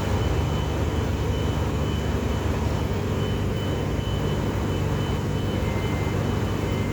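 Stick welding with a 7018 electrode: the arc crackles and hisses steadily over a constant low engine-like drone.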